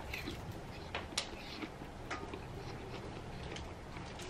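Someone chewing a crisp Fuji apple slice with the mouth close to the microphone: faint, irregular crunches and small mouth clicks.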